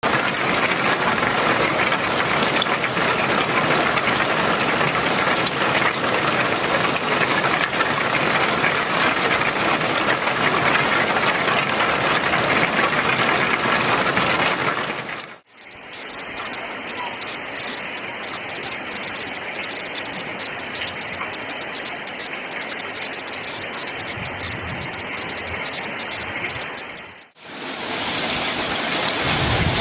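Heavy rain pouring onto roofs and streaming off the eaves: a steady, dense hiss. It drops out briefly twice, about fifteen and twenty-seven seconds in, changing character each time, and near the end it is rain on a corrugated metal roof.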